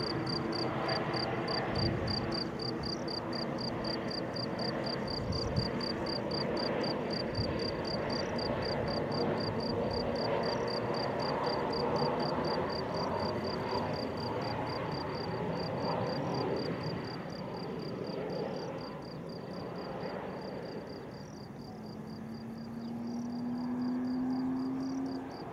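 Distant jet engine noise from a Boeing 737-800 landing and rolling out on the runway, a steady rumble that dips and swells again near the end, when a low hum rises in pitch. An insect chirps in a fast, even pulse throughout.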